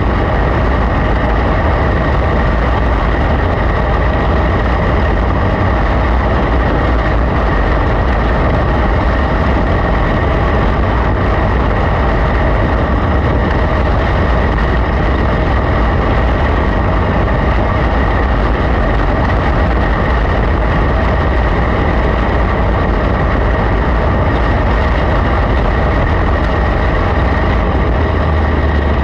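Onboard sound of a small winged dirt-track race car at racing speed: its engine running hard and steady, mixed with rushing wind and low rumble on the car-mounted camera's microphone.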